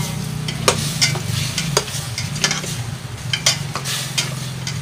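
Chicken sautéing with ginger, garlic, onion and chili in a pot, sizzling while a utensil stirs and scrapes against the pot in irregular strokes; a steady low hum runs underneath.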